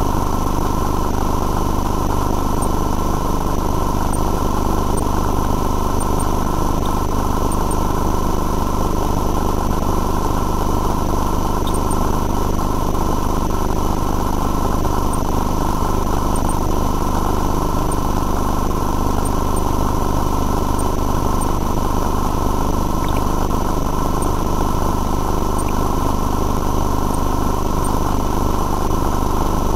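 Sewer CCTV inspection equipment running: a steady, engine-like drone with several constant whining tones above it, and a few faint ticks.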